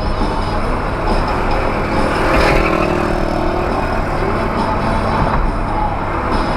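Steady road-vehicle noise, a motor vehicle running, swelling briefly about halfway through.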